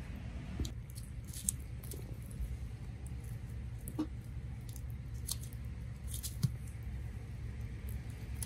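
Small wood cooking fire crackling, with scattered sharp clicks and pops as the embers are raked with a stick, over a steady low rumble. A short rising squeak about four seconds in.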